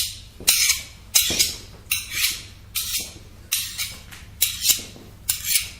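A metal blade scraped in short, hissing strokes, about seven of them a little under a second apart.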